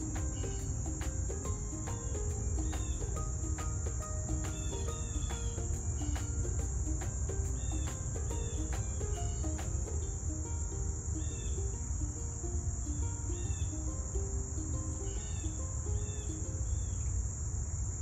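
Steady, high-pitched trilling of insects, running on without a break.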